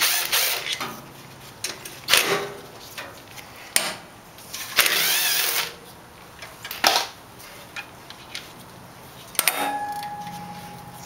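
Metal clicks and clinks of tool work on a small engine's carburetor, with a cordless power driver running for about a second midway. Near the end a metal part clinks and rings, the tone fading.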